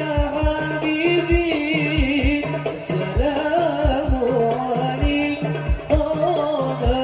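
A male vocalist sings an ornamented Islamic devotional song (sholawat) through a PA, with the pitch wavering and sliding between held notes. Hadrah frame drums beat under it in a steady low rhythm, about two strokes a second.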